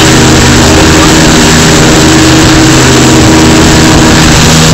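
Motorboat engine running steadily at speed, under a loud rush of wind and water that nearly overloads the microphone.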